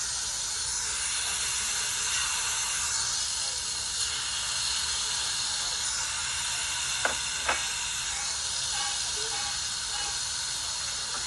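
Slices of raw beef sizzling with a steady hiss on a hot tabletop Korean BBQ grill. About seven seconds in come two sharp clicks, half a second apart, from the metal tongs.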